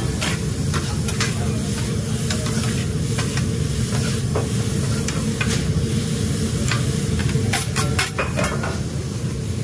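Two metal spatulas scraping, chopping and clacking on a flat-top griddle as mushrooms, onions and green peppers are tossed, over steady sizzling and a low hum. The clacks come in a quick flurry near the end.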